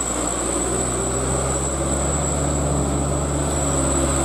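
Light cargo truck's diesel engine droning steadily under load as it climbs a steep hairpin, with a steady high-pitched whine throughout.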